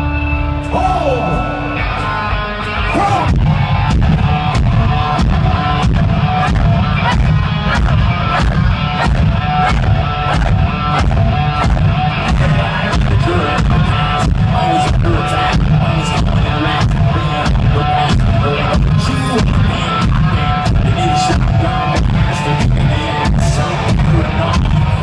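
Live hard-rock band playing loud, with distorted guitars, bass and heavy drums. A held chord and a gliding voice line give way about two seconds in to the full band driving on a steady, evenly spaced drum beat.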